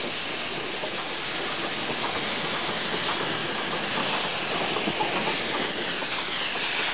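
Steam locomotive H2 blowing off steam around its cylinders and wheels as it starts away, a loud steady hiss of the kind given by open cylinder drain cocks, dropping lower in pitch near the end.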